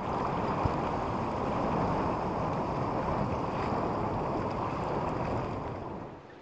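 Steady rush of wind and water aboard a small sailing yacht sailing upwind, fading out near the end.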